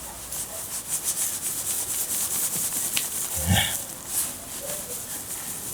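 Fast, scratchy scraping of a small hammer working through garden soil and stones, with one short low sound about three and a half seconds in.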